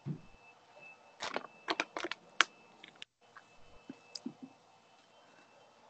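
Faint computer-keyboard typing over a video-call microphone: a quick run of key clicks starting about a second in and lasting about a second and a half, then a few scattered taps.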